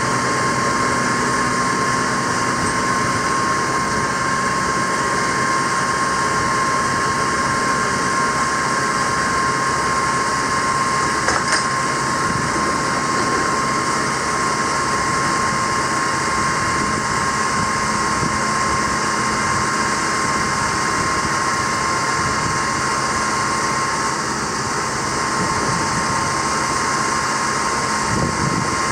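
The GMC C5500 bucket truck's 6.6-litre Duramax V8 turbo-diesel runs steadily, with a steady high-pitched whine over it.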